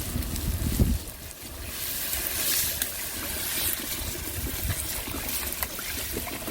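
Water being poured for the ramen, a hissing, splashing rush that swells about two seconds in and eases off after about four. A low rumble with a bump comes in the first second.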